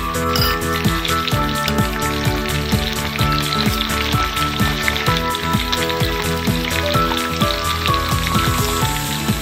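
Paneer cubes shallow-frying in hot oil in a nonstick pan, a steady crackling sizzle. A background tune of steady tones plays under it.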